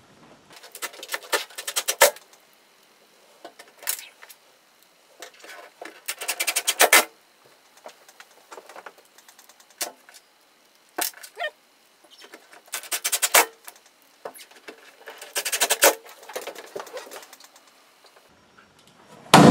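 Cordless driver running stainless steel screws into the base of an aluminum boat live well, in several short runs of rapid clattering with pauses between.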